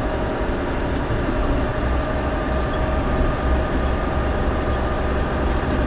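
Semi truck's diesel engine running at low speed under a light load, heard from inside the cab as a steady low rumble with a faint steady hum above it.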